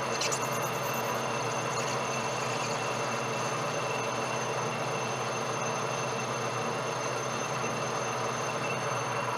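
Metal lathe running steadily, a constant motor and drive hum with a few fixed high tones, and a brief high hiss about a second in.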